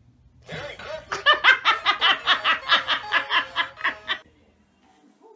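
A person laughing hard, a rapid run of ha-ha pulses about four or five a second that lasts some three and a half seconds and stops abruptly.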